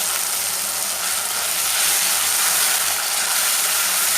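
Tomato puree frying in hot oil in a kadhai, sizzling steadily as it cooks down for a curry gravy.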